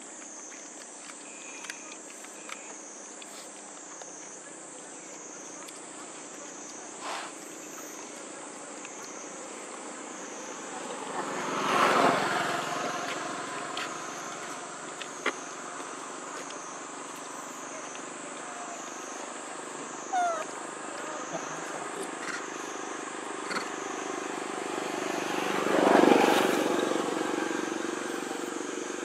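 A vehicle passing by twice, each time swelling and fading over a few seconds, about twelve seconds in and again near the end. Underneath, a steady high wavering tone and a few faint clicks.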